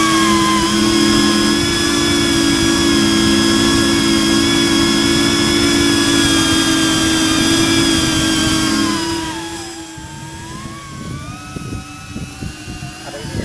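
Speedybee 35 cinewhoop FPV drone's motors and ducted propellers whining in flight, a steady high-pitched multi-tone whine with slight wavering in pitch. About nine seconds in it becomes quieter and falls in pitch.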